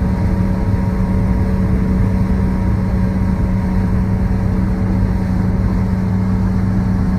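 Motorboat engine running at a steady cruising speed, heard on board as a constant low drone with an unchanging hum.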